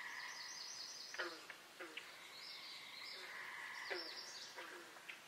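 Faint birdsong from several birds. It starts with a quick run of high chirps, then a thin held whistle and several short calls that slide downward in pitch, repeated every second or so.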